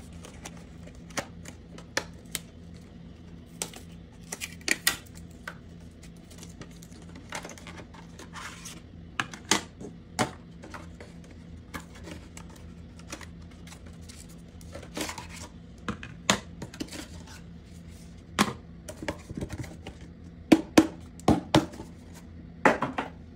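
Cardboard packaging and the clear plastic alignment trays of a tempered-glass screen-protector kit being handled on a wooden table: scattered clicks, taps and rustles, with the sharpest knocks near the end as the trays are set down. A steady low hum runs underneath.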